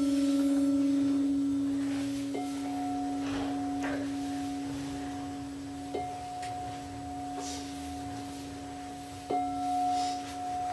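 Crystal singing bowls ringing. A low bowl holds one steady tone while a higher bowl is struck three times, each strike renewing its clear ring.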